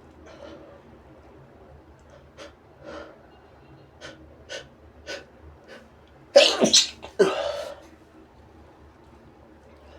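A man sneezing twice in quick succession about six seconds in, after about six short, sharp breaths as the sneeze builds up.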